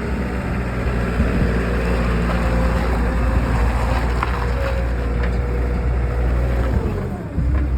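Caterpillar 246 skid steer's diesel engine running steadily. It dips briefly near the end, then comes back louder and lower.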